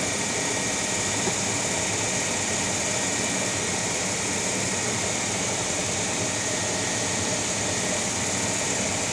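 Cue lathe's electric motor running steadily, spinning a pool cue shaft, with an even hiss and hum.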